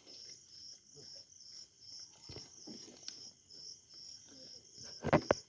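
Crickets chirping steadily at night, a high pulsing chirp about twice a second over a continuous higher trill, with faint rustling underneath. Near the end, two sharp loud slaps or knocks.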